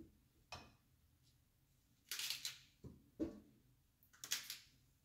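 Kitchen knife cutting vegetables on a wooden cutting board: a handful of separate, soft cuts and scrapes.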